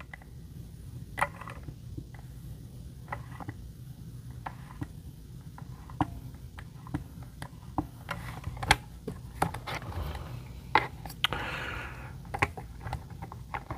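Strop on a Work Sharp Precision Adjust guided sharpener's rod drawn down a knife edge to remove the burr: scattered light clicks and soft scrapes, with a longer scrape a little after eleven seconds in.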